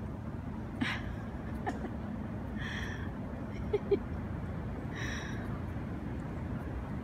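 Steady low outdoor rumble, with a few brief, faint high-pitched sounds and soft clicks over it.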